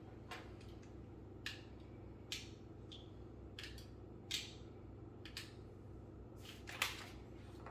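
LEGO plastic bricks and plates clicking as they are handled and pressed together: about a dozen short, sharp clicks at irregular intervals, the loudest near the end, over a steady low hum.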